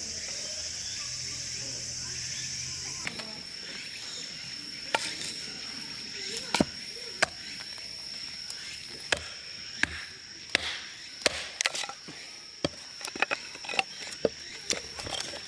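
Insects trilling steadily in a high, even tone. About three seconds in, irregular sharp clicks and knocks join in, one or two a second.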